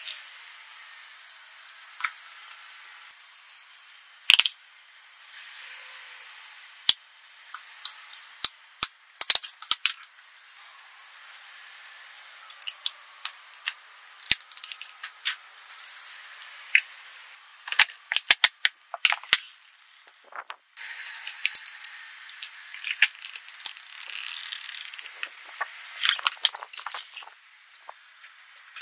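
Car tyre rolling over and crushing small plastic objects and slime tubs: a string of sharp cracks, snaps and pops, some in quick clusters, over a thin gritty hiss with no low end.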